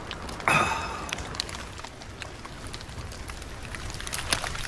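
A man's short, strained vocal exclamation about half a second in, his reaction to a shot of vodka. After it there is only a low background rumble and a few faint ticks.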